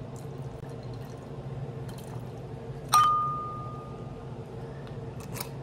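A single clink of glass about three seconds in, ringing on one clear tone for about a second as it fades, over a steady low hum; it is the sound of wine being poured into a glass.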